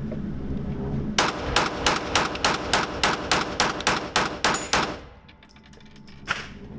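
Smith & Wesson M&P9 2.0 9mm pistol fired in a fast string of shots, about four to five a second for some three and a half seconds, starting about a second in. One more single sharp bang comes about six seconds in.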